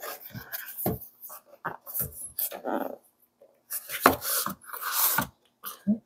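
Cardboard packaging being opened by hand: a boxed flashlight's outer sleeve pulled off and the inner box slid out, in a run of short scrapes, rubs and light knocks of cardboard against the table.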